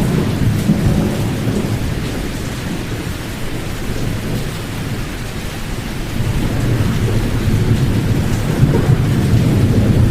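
Pink noise, white noise with its high frequencies filtered out, played as a steady deep hiss that sits mostly in the low range. It dips a little in loudness in the middle and swells back up about six seconds in.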